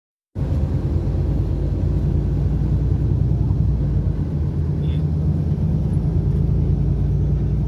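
Steady, loud low rumble of a coach bus's engine and road noise, heard from inside the passenger cabin while driving at a constant speed.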